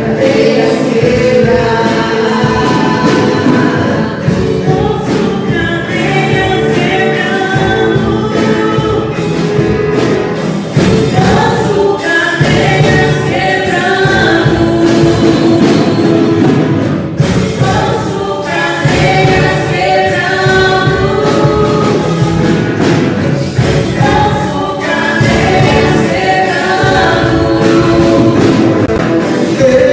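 Christian worship song sung by a choir, with music underneath.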